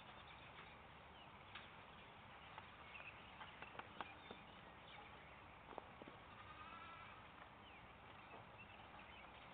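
Near silence: faint outdoor ambience with a few soft thuds, and a faint wavering bleat about six and a half seconds in.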